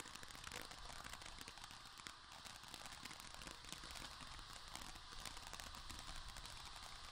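Multi-effect ground fountain firework spraying sparks, heard as a faint steady hiss with scattered light crackles.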